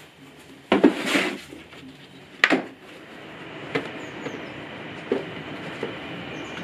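Handling noise on a wooden workbench: a couple of knocks and a rustling clatter about a second in, a sharp click about two and a half seconds in, then a steady background hum with a few light taps.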